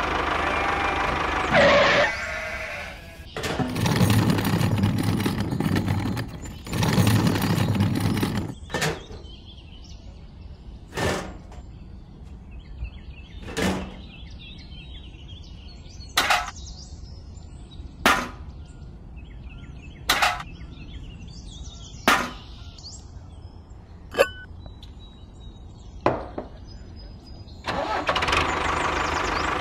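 Sharp clicks and light knocks of small wooden and plastic model parts being set down and fitted on a toy trailer, about one every two seconds, after two loud rushing noises about four and seven seconds in. Near the end a steady tractor engine sound starts.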